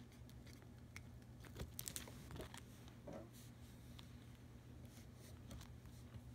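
Faint handling noises: a few soft clicks and rustles as a sheet of smart film and electrical tape are handled, over a low steady hum.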